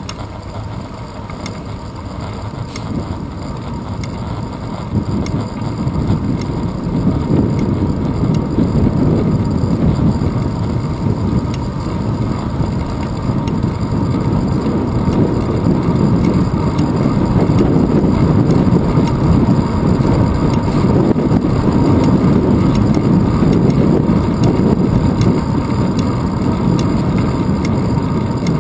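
Wind noise and road rumble on a bicycle's handlebar-mounted GoPro Hero 2 while riding on asphalt: a steady low rushing that grows louder from about five seconds in.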